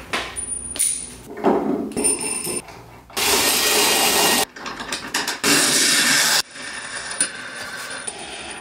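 Workshop tool sounds: knocks and handling noises, with two loud, steady stretches of noise about a second long, the first about three seconds in, each starting and stopping abruptly.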